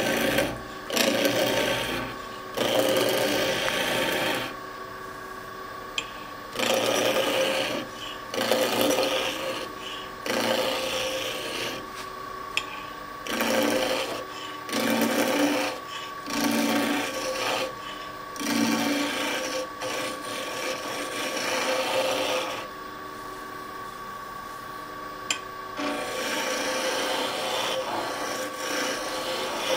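Skew chisel cutting a spinning wooden spindle on a lathe: a dozen or more short cutting passes with brief pauses between, over the steady hum of the running lathe. The cuts get lighter in the last few seconds.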